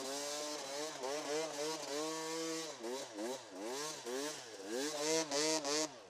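Dirt bike engine revving up and down again and again as the throttle is worked through soft sand, its pitch climbing and falling every half second to a second, then dropping off near the end.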